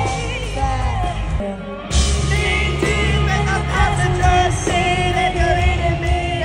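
Live pop-rock concert recorded on a phone: a female lead singer with a full band. The music breaks off briefly about a second and a half in and comes back louder.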